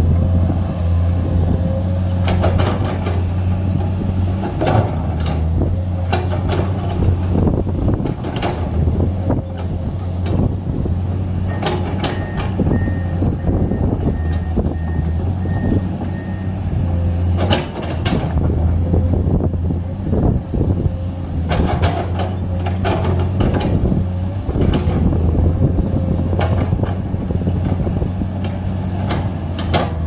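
Komatsu PC210 hydraulic excavator's diesel engine running steadily under load while it digs, with repeated scrapes and clanks of the steel bucket in the earth. A faint beeping alarm repeats evenly from about twelve to sixteen seconds in.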